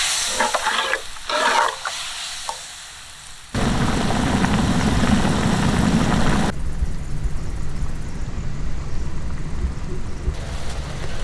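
Spicy crab gravy in a large pot, stirred with a ladle in a few short splashes, then boiling hard with a steady bubbling hiss that starts suddenly about three and a half seconds in; the sound changes about six and a half seconds in.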